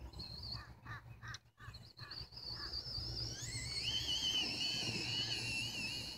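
Traxxas Rustler VXL RC truck's Velineon brushless motor on a 3S LiPo, whining under throttle: short blips in the first two seconds, then a high whine that rises in pitch about three seconds in and holds as the truck runs flat out, over a low rumble.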